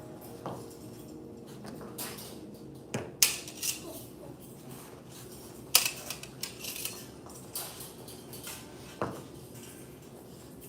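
Pair of butterfly knives clinking and tapping metal on metal as they are worked through a form: irregular sharp clinks, two louder ones about three and six seconds in.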